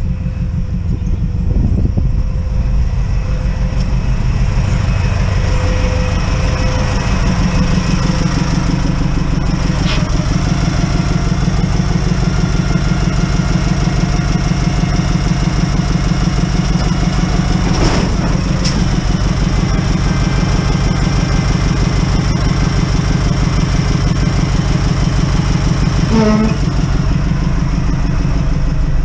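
Truck engine running steadily while its hydraulic hoist works the full scrap-metal bin. The engine note strengthens about seven seconds in as the hoist takes the weight, and two metal clunks come through, about ten and eighteen seconds in.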